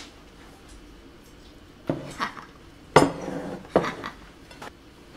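Plates being set down on a table and clattering with cutlery: three sharp knocks with short rattles, about 2, 3 and 4 seconds in, the middle one the loudest.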